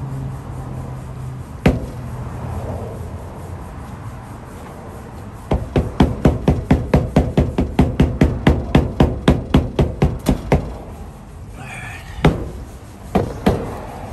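Gloved palm thumping on a 1961 Volkswagen Beetle's windshield glass to seat it into its rubber weatherstrip as the rope is pulled through. There is a single knock early, then a fast even run of thumps at about five a second for about five seconds, and a few single knocks near the end.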